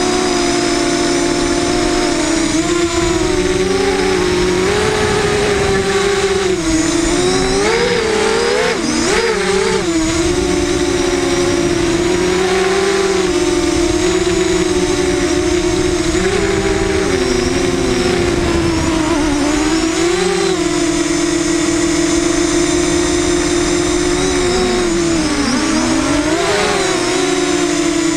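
Electric motors and propellers of a small FPV racing quadcopter whining steadily, the pitch wavering up and down with the throttle and swooping sharply a third of the way in and again near the end.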